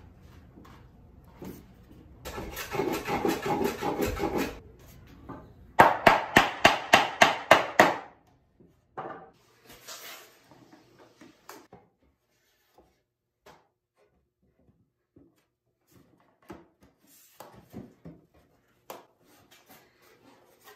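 Pine boards being worked by hand: two runs of quick rhythmic scraping strokes, the second louder and sharper at about four or five strokes a second, followed by scattered light wooden knocks and handling as the dovetailed corners of the carcase are fitted.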